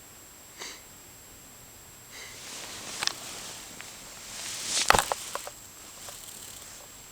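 A sleeping person gives one short snort, then a few seconds of rustling and knocking with one loud thump about five seconds in.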